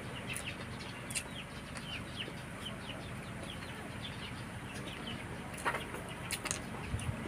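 Birds, likely backyard fowl, give short falling chirps again and again, with a few soft clicks in between.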